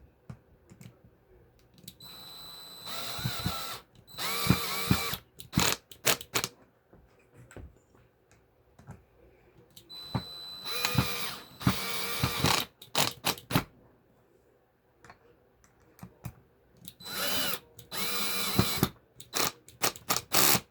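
Hyper Tough 20-volt cordless hammer drill driving screws in short runs, in three groups. The motor whines up at the start of each run, with a rattle that is the drill's hammer action. Clicks of handling come between the groups.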